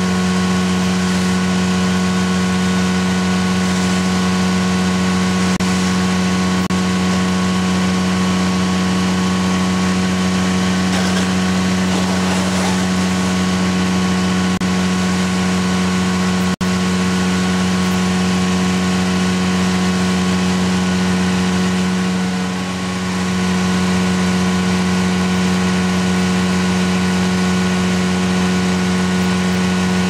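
Engine-driven oil-spill vacuum unit running steadily at one even pitch. There is a sharp click just past halfway, and the sound dips briefly about 22 seconds in.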